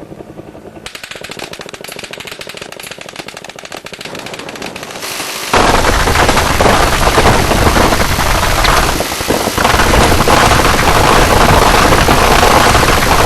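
Dillon M134D six-barrelled, electrically driven Gatling gun in 7.62mm NATO firing one continuous burst at its fixed 3,000 rounds a minute, heard as an unbroken buzz of shots. It is quieter at first and suddenly becomes much louder about five and a half seconds in, with a short dip a few seconds later.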